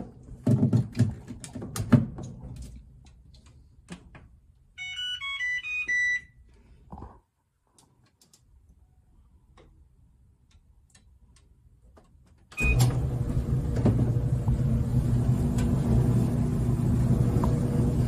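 Clicks and knocks, then a quick run of electronic beeps at changing pitches from a clothes dryer's control panel as it is set and started. About twelve seconds in, the dryer starts suddenly and runs with a steady motor hum and the rush of its blower, as a test run after the vent cleaning.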